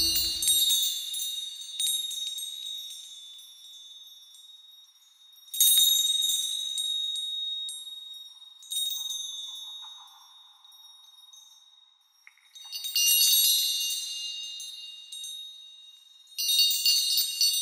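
High tinkling chimes in five clusters, each struck at once and then fading, spaced about three to four seconds apart.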